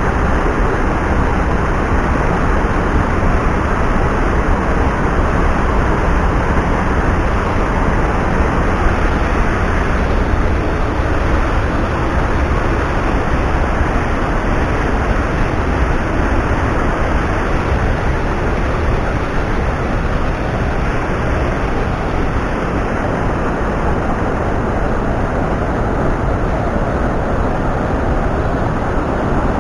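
Mountain stream rushing over rocks close by, a loud, steady noise of running water with no breaks.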